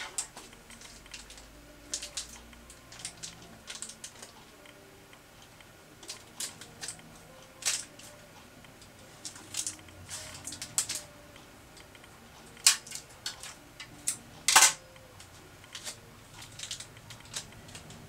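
Small shiny plastic blind-bag wrapper crinkling and crackling as it is handled and snipped open with scissors, in short irregular crackles, with two sharper, louder snaps about two-thirds of the way through.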